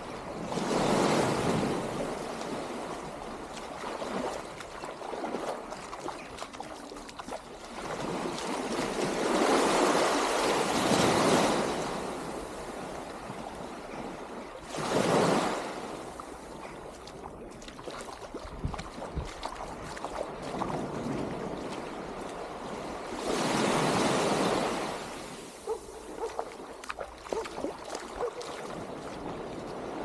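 Small waves breaking and washing up a sandy shore, the sound rising and falling in slow swells every few seconds.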